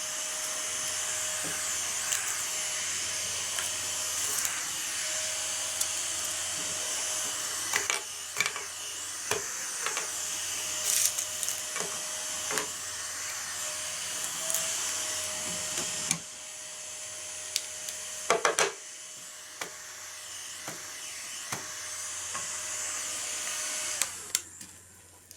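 Small battery-powered desktop vacuum cleaner running with a steady airy hiss and a faint steady whine, with scattered clicks and knocks from handling. It is switched off near the end.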